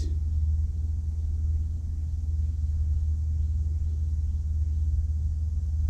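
A steady low rumble, unchanging throughout, with nothing else standing out above it.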